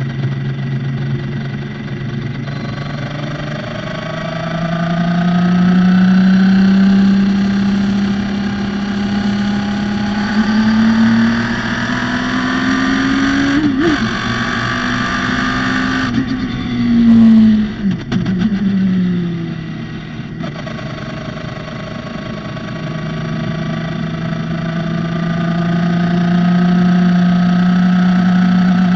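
Radical SR3 race car engine under hard acceleration, its pitch climbing steadily for about ten seconds. It breaks sharply in the middle, then falls with a few quick blips as the car brakes and downshifts, and climbs again near the end.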